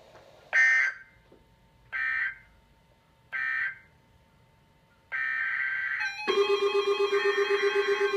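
Emergency Alert System SAME data tones: three short, buzzy digital bursts about a second and a half apart, the end-of-message signal closing a flood warning. About five seconds in, a longer data burst follows, and about a second later a loud, rapidly pulsing electronic alert tone starts.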